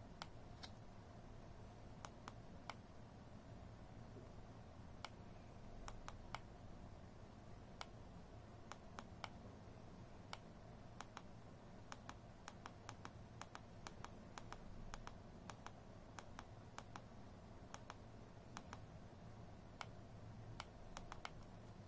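Keys of an i8 mini wireless keyboard clicking faintly as the Fn and F2 keys are pressed over and over to cycle the backlight colours. The clicks are irregular, a few at first and then coming several a second from about eight seconds in.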